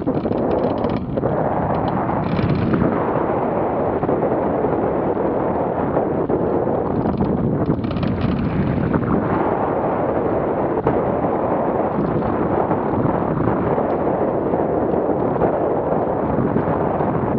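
Loud, steady rush of wind buffeting the microphone of a camera mounted on a hang glider's wing in flight.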